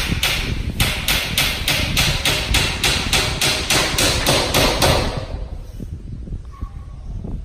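Rapid, even hammer blows, about four to five a second, stopping about five seconds in.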